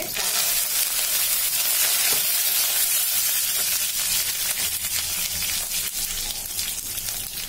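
Green chillies and curry leaves dropped into hot tempering oil in an aluminium kadhai, setting off a loud, crackling sizzle. The sizzle starts suddenly and eases slightly after the first few seconds as they are stirred.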